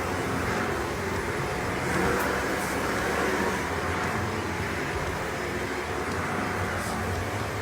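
Upright vacuum cleaner running: a steady whooshing rush over a low motor hum, swelling slightly about two seconds in.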